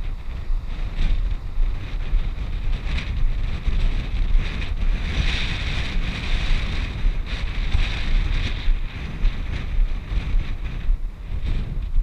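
Wind buffeting the microphone: a heavy, uneven low rumble with a swell of gusty hiss about five seconds in.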